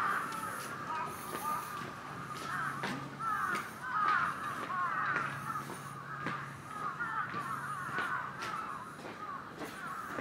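A flock of birds calling together in dense, overlapping chatter, with a low steady hum underneath from a few seconds in.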